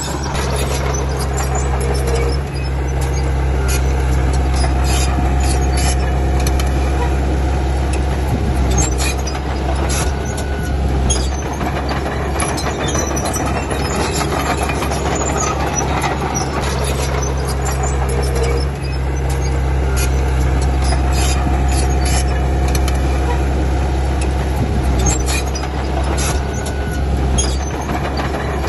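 Komatsu D31P crawler bulldozer's diesel engine running steadily under load, with repeated metallic clanks and squeaks from the steel tracks. The engine note dips briefly about every seven or eight seconds.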